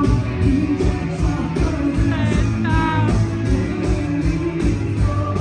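Rock music with a steady beat and some singing.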